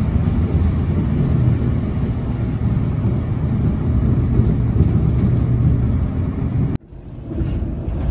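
Volvo 9600 sleeper bus running at highway speed, heard from inside the cabin: a steady low engine drone with road noise. It cuts out abruptly near the end and comes back over about a second.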